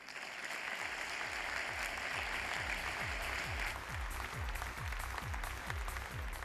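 Audience applauding steadily. From about two seconds in, music rises underneath with a deep beat about three times a second.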